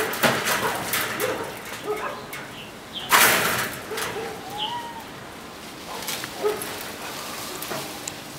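Guard dogs barking off in the distance, short barks repeated every second or so, with a bird calling once near the middle. A loud burst of rattling noise about three seconds in.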